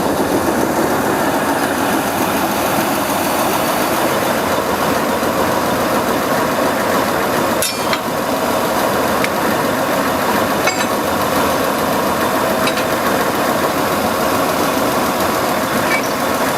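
Diesel-hydraulic shunting locomotive's engine running steadily at idle, with a few brief clicks partway through.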